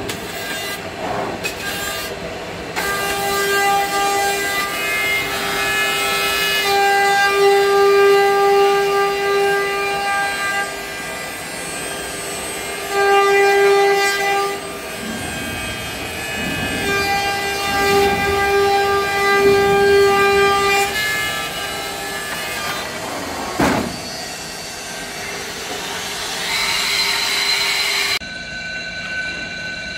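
High-speed spindle of a five-axis CNC trimming machine whining steadily as it cuts the edge of a vacuum-formed plastic shell, the tone swelling louder over several cutting passes. One sharp knock sounds about three quarters of the way through.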